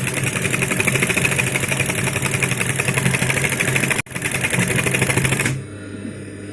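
Brother industrial high-speed sewing machine stitching a buttonhole through its buttonhole attachment: a fast, even clatter of needle strokes, with a brief break about four seconds in. The stitching stops about five and a half seconds in, leaving a steady motor hum.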